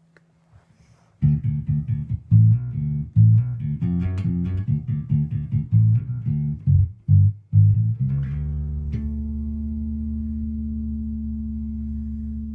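A low-pitched plucked string instrument plays a riff of short, separated notes. A little past the halfway point it lets one last note ring on steadily.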